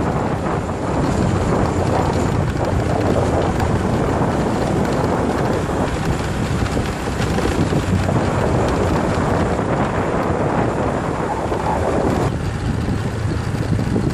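Wind rushing over the microphone on a moving motor scooter, with the scooter's engine running steadily underneath. The wind noise lessens near the end.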